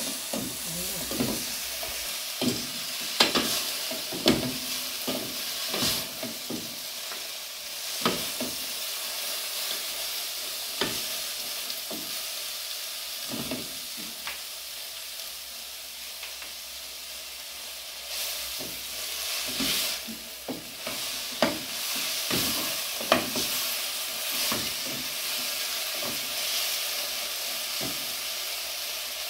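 Sliced collard greens sizzling as they sauté in oil in an aluminium pot, stirred with a wooden spoon that knocks against the pot now and then.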